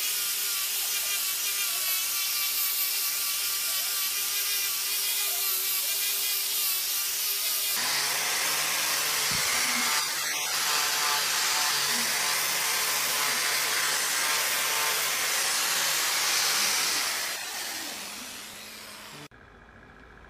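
Handheld angle grinder running against the wood of a turned vase: a steady motor whine with grinding hiss. About eight seconds in it turns rougher and noisier, then it fades out near the end.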